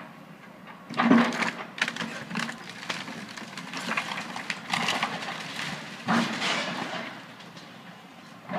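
Excavator tearing into a house: irregular crashes and cracking of breaking wood and roofing, the loudest about a second in, over the steady hum of the excavator's engine.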